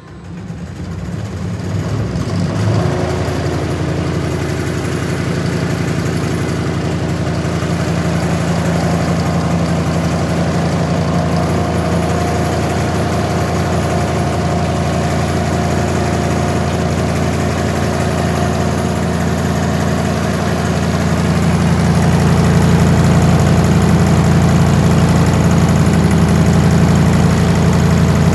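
Electric motor driving a test-rig pump, fed by a variable speed drive at 30 Hz: it comes up to speed over about two seconds, then runs with a steady hum at about 1,700 rpm. It gets a little louder about two-thirds of the way through.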